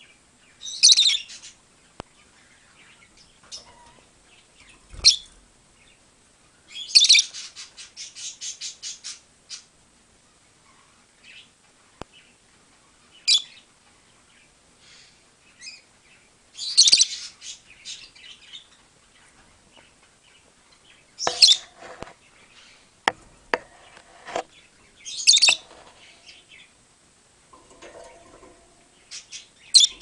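Peach-faced lovebird flock calling: loud, shrill single calls every few seconds, with a fast run of repeated chirps about seven seconds in.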